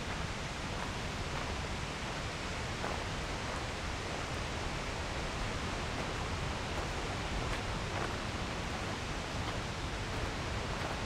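Steady rushing roar of fast-falling water, even and unbroken, with a few faint ticks over it.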